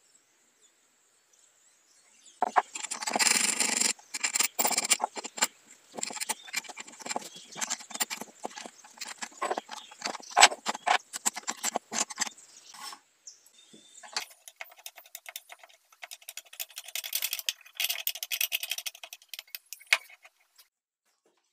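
Metal clinks and rattles of a wrench working a nut on the threaded steel rod of a homemade wooden vise, mixed with wooden parts knocking and sliding. From about two-thirds of the way in there is a steadier scraping rattle as the vise screw is wound in by its wooden knob.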